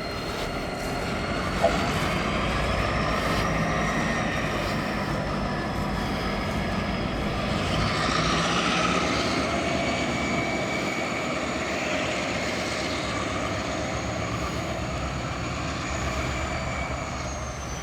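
A train passing with a steady rumble, and a thin high whine that drifts slowly up and down in pitch.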